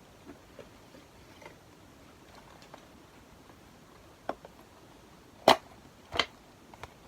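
Cardboard packaging being handled: a few short sharp taps and clicks, the loudest a little past halfway, with another about a second later.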